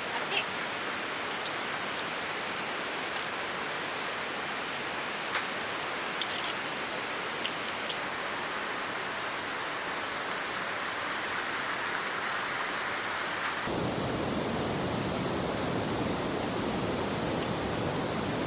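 Heavy rain pouring steadily, a dense rushing hiss, with a few sharp clicks in the first half. About fourteen seconds in, the rush suddenly becomes fuller and deeper.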